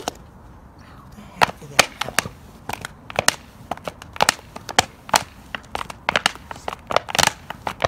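Thin plastic water bottle squeezed and released again and again, its walls crackling and crinkling with each squeeze as it pumps cigarette smoke through a homemade smoking-lung model. The crackles are irregular and start about a second and a half in.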